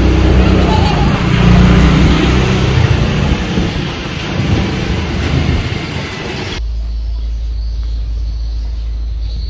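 Loud, fluctuating outdoor rumble and noise that cuts off abruptly about two-thirds of the way through, giving way to a quieter, steady low hum.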